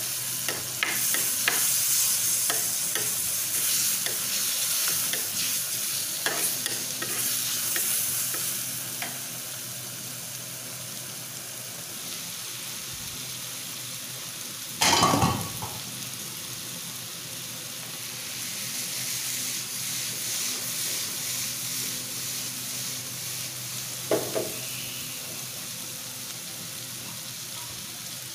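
Sliced onions and curry leaves sizzling in hot oil in a clay pot, stirred with a steel spoon for the first several seconds with scraping clicks, then frying steadily. A short loud knock comes about halfway, and a smaller one a few seconds before the end.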